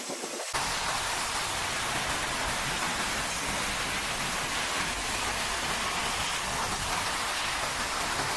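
Heavy hurricane rain pouring down as a steady, dense hiss, starting abruptly about half a second in.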